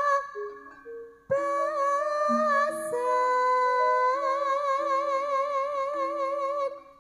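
Javanese langgam music from a live jaranan ensemble. A long, wavering held melody line with a strong vibrato breaks off briefly about a second in, then resumes and moves up a step, over a slow run of short mallet-struck notes.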